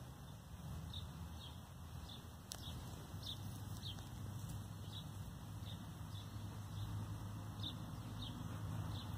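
A small songbird chirping over and over, short high notes that fall slightly, repeated about once or twice a second, over a steady low background rumble.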